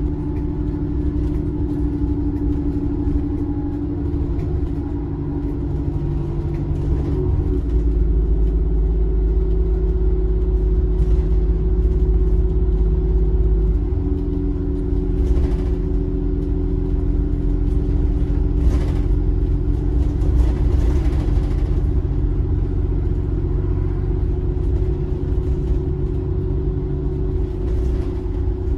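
Bus engine running with road rumble, heard from inside the bus: a steady low drone whose pitch and level shift about 7 seconds in and again about 14 seconds in, with a few faint rattles.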